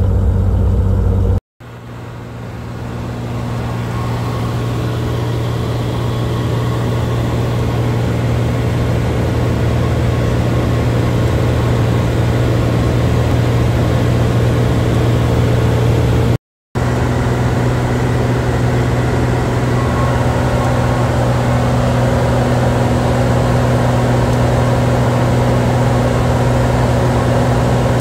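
Cessna light aircraft's piston engine and propeller droning steadily, heard from inside the cabin in flight: a loud, even low hum with fainter higher tones above it. The sound breaks off for an instant twice, about a second and a half in and again past the middle, and swells back up after the first break.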